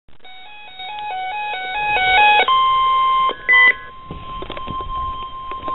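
Weather radio sounding a tornado warning alert: a quick two-tone beeping steps up in pitch and grows louder, then gives way, about two and a half seconds in, to the steady 1050 Hz NOAA warning alarm tone. A short, louder beep cuts in briefly near the middle, and a few clicks sound over the tone.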